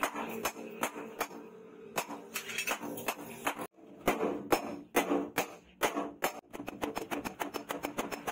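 Hand hammer forging a red-hot machete blade on a steel post anvil: a run of sharp metal-on-metal blows, breaking off briefly a little before halfway, then quickening to about five blows a second near the end.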